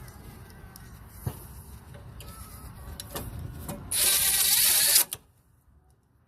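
A few light clicks and knocks of bolts and parts being handled, then a small power tool runs in one loud burst of about a second, driving in a bolt, and stops suddenly.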